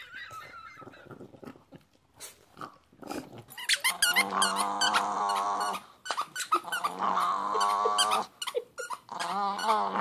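Small Chihuahua-type dog growling in three long, wavering stretches, starting about four seconds in. Before that there are only soft clicks and scuffles.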